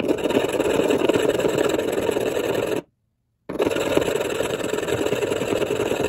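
Metal bottom of a faucet cartridge being rubbed by hand on an abrasive stone: a steady, dense scraping, in two stretches broken by a short gap a little before halfway. The grinding smooths the rough, corroded sealing surface whose bad seal makes the faucet drip.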